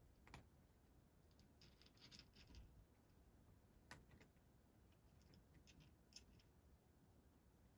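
A cat crunching dry kibble from its bowl: faint, irregular bursts of small crunching clicks, with three sharper clicks among them.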